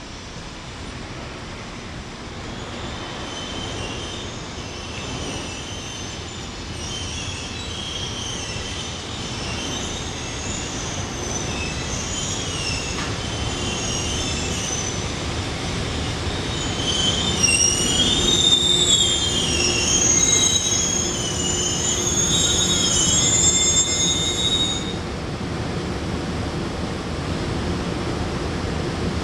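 Train running by with its wheels squealing against the rails: a wavering high squeal over the rumble of the train, growing louder, loudest in the second half, then cutting off suddenly a few seconds before the end while the rumble goes on.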